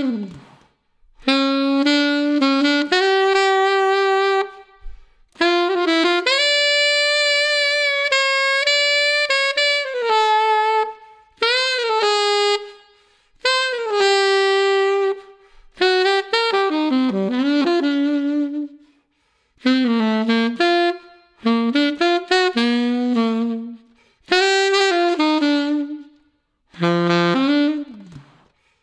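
Unaccompanied Yanagisawa WO33 alto saxophone with its original solid silver neck, played on a BetterSax Burnin' 7 mouthpiece with a Jazz Cut 2.5 reed. It plays a run of short melodic phrases with brief breaks between them, and some notes bend or scoop in pitch.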